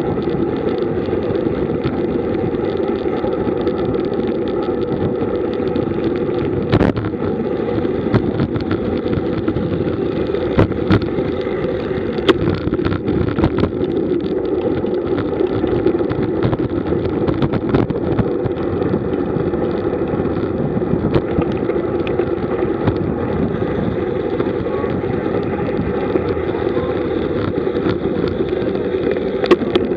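Wind and road noise on a camera riding on a road bicycle at speed: a steady rumble with scattered sharp clicks and knocks.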